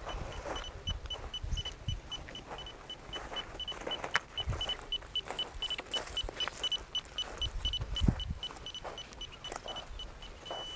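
Handheld long-range underground water detector sounding short high beeps at one pitch, about three a second, which come closer together around the middle.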